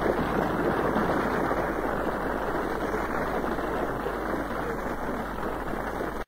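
Steady rushing noise with no clear pitch or rhythm, cutting off abruptly near the end.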